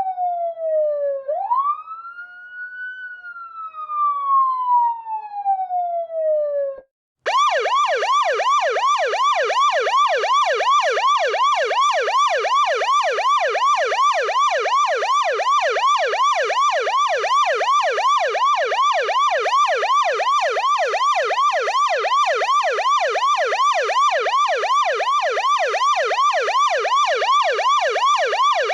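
Police siren in a slow wail, the pitch falling, rising and falling again over several seconds. After a brief break about seven seconds in, it switches to a fast yelp that sweeps up and down about three times a second.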